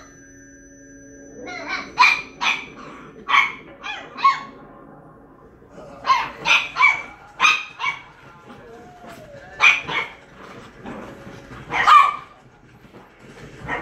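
A dog barking: about a dozen short barks in groups of two to four, with pauses of a second or two between the groups.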